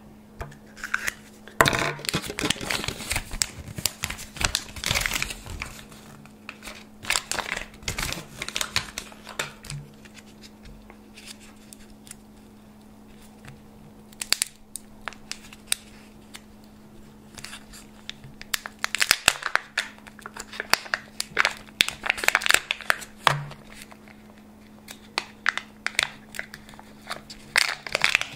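Crinkly wrapper of a Kinder Joy egg being torn and peeled off by hand: crinkling and tearing in bursts, with a quieter stretch in the middle, over a faint steady hum.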